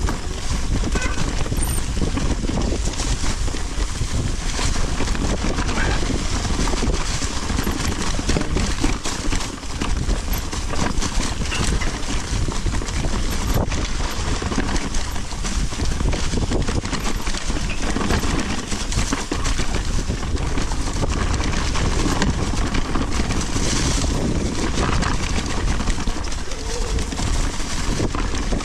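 Mountain bike riding over a dirt trail: tyres rolling and knocking over roots and rocks, the bike rattling, with wind rumbling on the camera microphone throughout.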